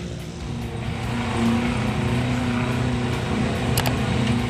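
Off-road 4x4's engine running, getting louder about a second in, with a single sharp click near the end.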